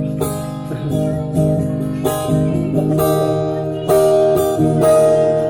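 Acoustic guitar strummed in an instrumental break of a song, about one stroke a second, over a steady held tone.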